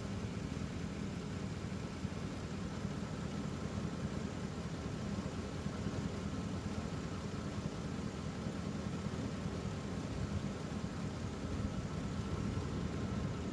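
A vehicle engine idling: a steady, even low hum with no change throughout.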